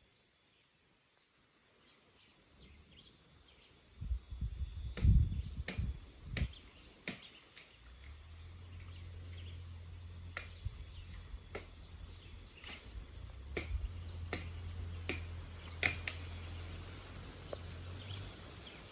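Outdoor ambience: wind rumbling on the microphone, gusting hardest a few seconds in, with a string of sharp clicks about once a second and faint bird chirps.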